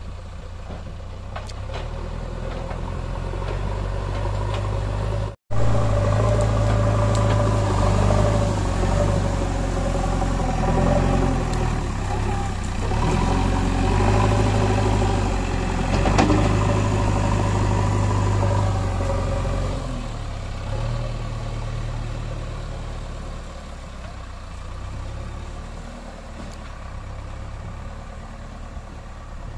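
JCB backhoe loader's diesel engine working as its front bucket pushes and levels soil, a steady low drone that builds over the first few seconds, is loudest for about fifteen seconds and then eases off. The sound cuts out for a moment about five seconds in.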